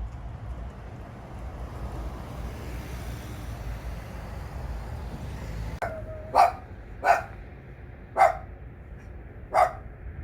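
A dog barks four times, spaced about a second apart, over a steady low rumble. A short held whine comes just before the first bark.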